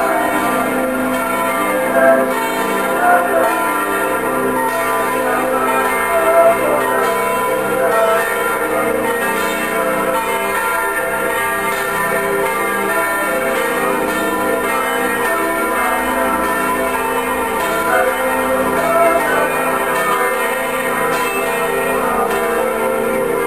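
Orthodox church bells ringing continuously, several bells sounding together in overlapping tones: festive ringing for a church procession.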